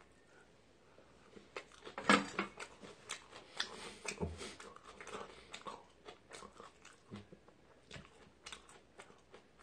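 A man chewing a mouthful of kimchi close to the microphone: irregular crunching in quick little clicks, starting about a second and a half in, loudest around two seconds in, and thinning out towards the end.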